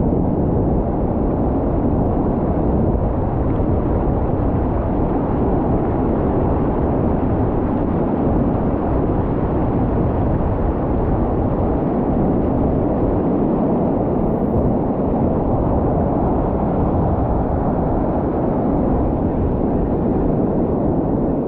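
Steady low rush of ocean surf breaking and washing over a shallow beach, with wind buffeting the microphone.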